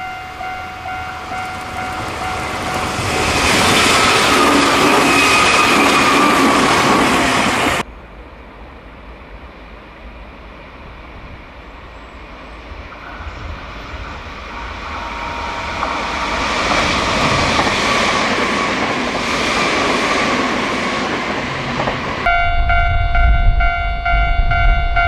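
Streamlined electric express trains passing close by, the rail noise and a gently falling motor whine swelling and fading as each goes by; the sound cuts abruptly between separate passes about eight and twenty-two seconds in. A steady high ringing tone runs at the start and again from the last cut, over a low rumble.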